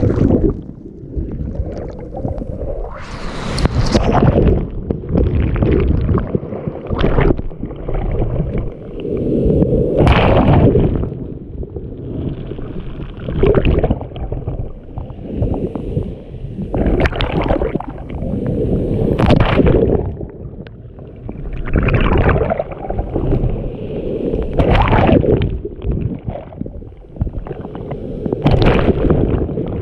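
Waves splashing and sloshing in repeated surges, one every two to three seconds, each swelling into a hissing splash and then ebbing to a low rumble.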